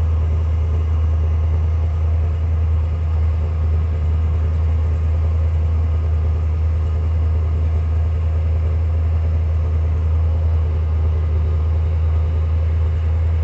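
Car engine idling, heard close to the tailpipe as a steady low exhaust drone.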